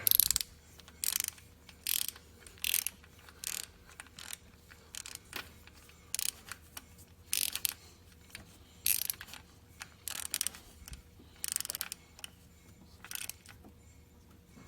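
Socket ratchet clicking in short repeated bursts, about one to one-and-a-half a second, each time the handle is swung back while working a bolt.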